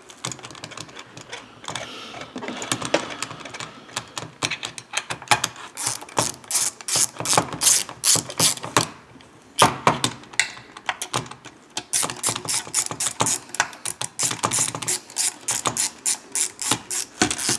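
Ratchet wrench clicking rapidly as its handle is swung back and forth, running in the crankcase bolts of a chainsaw crankcase, with brief pauses about halfway through.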